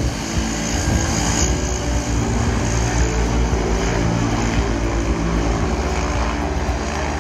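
A Viking Twin Otter 400's turboprop engines and propellers running steadily as the aircraft taxis.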